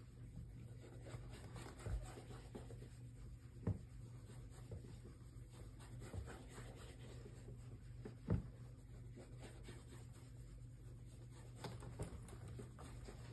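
Faint rubbing of a damp, polish-loaded cloth over a fingertip, worked in circles on a leather boot toe to work in a base coat of boot polish, over a low steady hum. A few soft knocks break in now and then.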